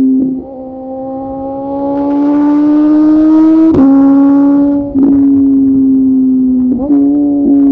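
Suzuki motorcycle engine pulling under acceleration, its note climbing steadily with rising wind hiss, then cut short by a quick gear change about four seconds in that drops the pitch. A second brief break follows about a second later, and near the end the revs jump up for a moment before settling.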